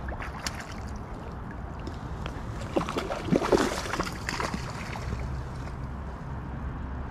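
Steady creek water and wind noise on the microphone, with a short flurry of splashing and rustling about three to four and a half seconds in as a landing net is moved at the water's edge.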